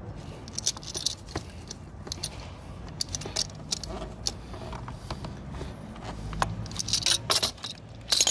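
Metal tools clinking and clicking in short bursts as a ratchet and self-tightening claw oil filter wrench work a motorcycle's spin-on oil filter loose, with the loudest burst about 7 seconds in.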